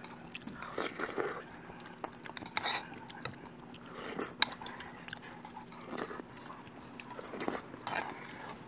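Someone chewing and eating a mouthful of dumpling soup, with a few soft smacking bursts and faint clicks, one sharper click near the middle. A faint steady hum runs underneath.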